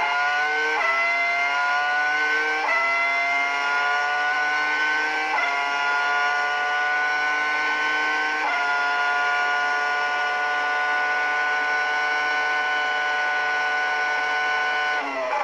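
Ferrari Formula 1 V10 engine at full throttle. Its high note climbs through each gear and drops sharply at four upshifts in the first half. It then holds a steady high pitch in top gear and falls away near the end as the revs come down.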